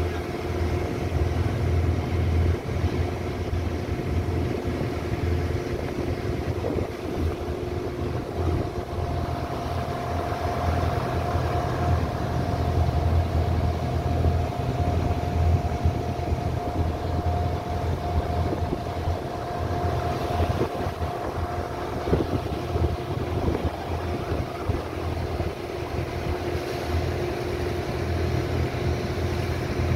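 Passenger boat's engine running steadily under way: a continuous low drone with a steady hum above it.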